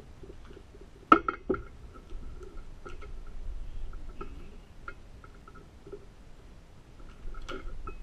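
Light metallic clicks and taps of a Master Lock Magnum combination padlock being handled, with two sharp knocks about a second in and another cluster of clicks near the end. The sound is muffled, picked up by a camera inside a case.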